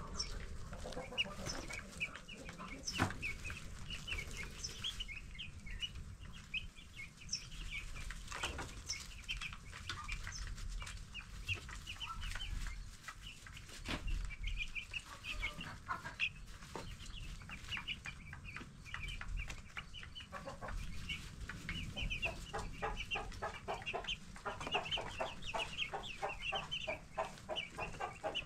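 A brood of 10-day-old broiler chicks peeping steadily: many short, high chirps overlapping, broken by a few sharp knocks. Near the end a faster run of lower, rapidly repeated sounds builds up under the chirping.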